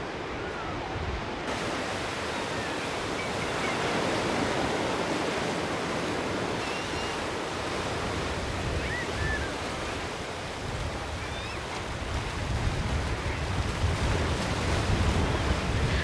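Surf breaking and washing up a sandy beach in a steady rush of noise. Wind buffets the microphone in gusts that grow stronger in the last few seconds.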